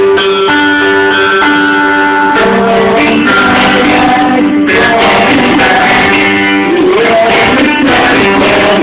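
Live rock band playing with electric guitars and drums: held guitar chords ring out, then about two and a half seconds in the band moves into a busier passage.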